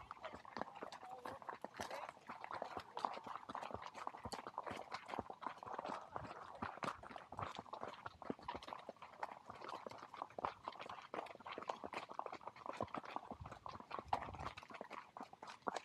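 Horses walking on a gravel road, a steady, uneven run of hoof clops and crunches from several hooves.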